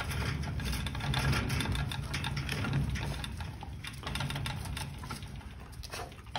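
A small motor running with a steady low hum, with light clicking and rattling over it.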